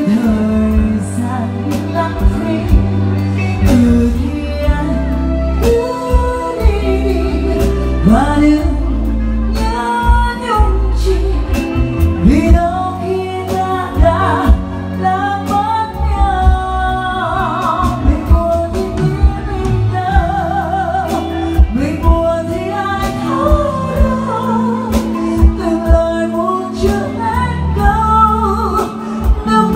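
A woman singing a Vietnamese song live through a microphone with held, wavering notes, backed by a band with keyboard and electric guitar.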